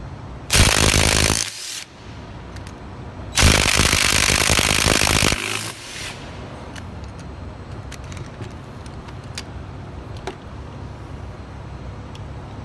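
Cordless impact wrench hammering as it loosens the 12 mm front housing bolts of an automotive A/C compressor. There is a burst of about a second, then a longer run of about two seconds, followed by a few light clicks of the socket and bolts.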